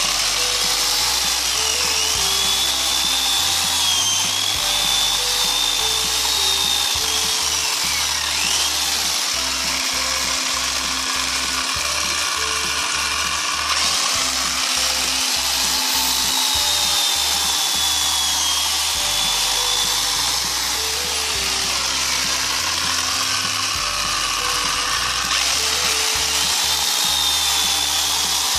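CRAFIX 710-watt electric chainsaw running and cutting through a log. Its motor whine dips in pitch as the chain bites and recovers again, several times over. Background music plays under it.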